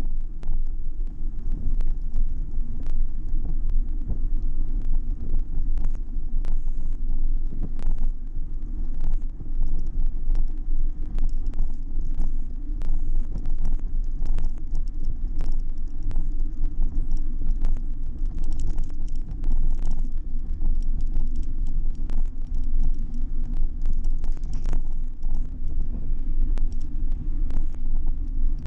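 Ride noise picked up by a GoPro mounted on a moving bicycle: a steady low rumble of tyres and frame vibration, with frequent sharp clicks and rattles over bumps.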